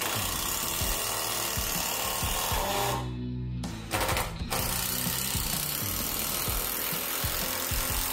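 A cordless drill running hard into a wooden 4x4 post in two long bursts, with a short stop about three seconds in. Background music plays underneath.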